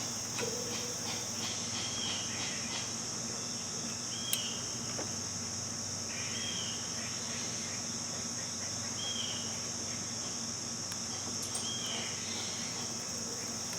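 Crickets trilling steadily over a low steady hum, with one light click about four seconds in.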